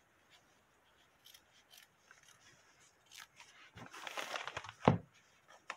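Small curved applique scissors snipping fabric close to the stitching on a terry towel: faint, scattered snips at first. Near the end comes a louder rustle of the fabric and towel being handled, then a sharp click.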